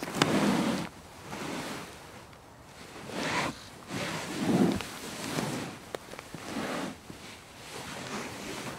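A person shifting their weight on a couch: a series of soft rustles and swishes of cushions and upholstery, in several separate movements. The loudest comes right at the start and another about four and a half seconds in.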